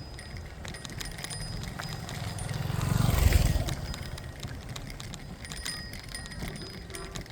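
A vehicle passing close by: its noise swells up over about a second, peaks a little past the middle and fades away again.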